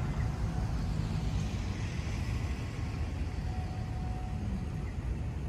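Steady low rumble of city traffic, with no distinct events standing out.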